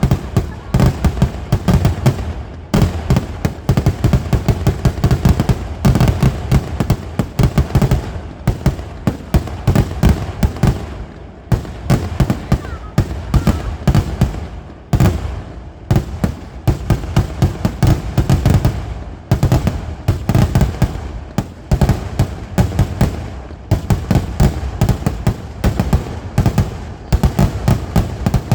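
Fireworks going off in a dense, continuous barrage of rapid bangs, many explosions a second, with only brief lulls.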